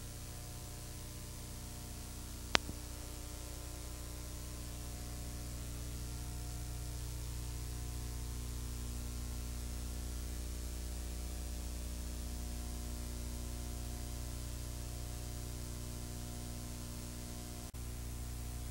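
Single-engine Cessna 182's engine and propeller droning steadily in cruise climb, a low hum with a steady hiss over it. A single sharp click about two and a half seconds in, and the sound drops out for an instant near the end.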